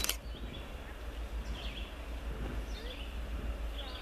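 A small bird chirping, short falling chirps about once a second, over a low steady rumble. A sharp click at the very start.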